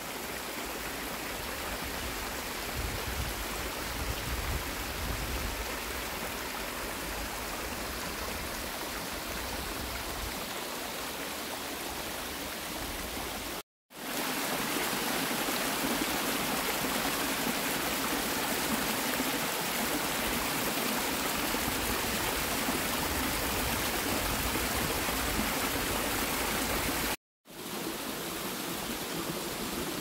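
Waterfall rushing, a steady noise of falling water. It drops out for an instant about halfway through and again near the end, coming back a little different each time, louder after the first break.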